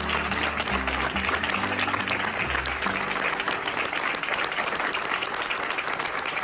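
A large audience applauding steadily, many hands clapping together. Background music with low bass notes plays under the clapping and stops about three seconds in.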